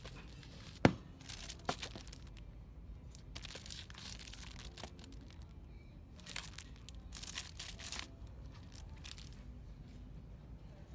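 Rustling and crinkling of packaging or a bag being handled, in short scattered bursts, with one sharp click about a second in.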